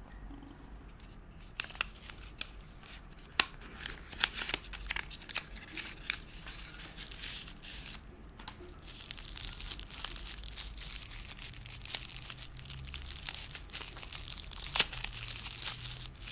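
A cardboard retail box being handled and opened with a few sharp clicks, then a thin translucent wrapper crinkling and rustling as a silicone Apple Pencil sleeve is pulled out and unwrapped by hand.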